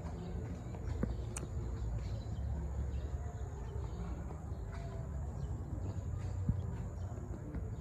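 Outdoor ambience: a steady high-pitched insect trill over a low rumble, with a few faint clicks.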